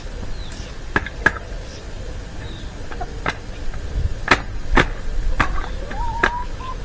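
Seven sharp knocks and clicks, scattered unevenly across a few seconds, with a short squeak or call that rises and then holds near the end.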